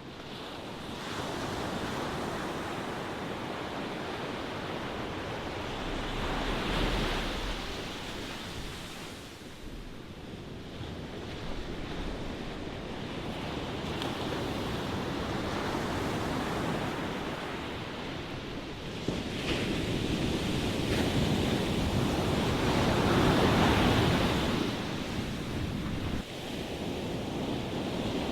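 Ocean waves washing ashore as a steady rushing surf that swells and ebbs, with two louder waves breaking, one about a quarter of the way in and a bigger one near the end.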